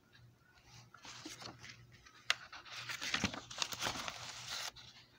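Paper rustling and crinkling as a page of a hand-drawn picture book is turned, with a sharp click a little over two seconds in.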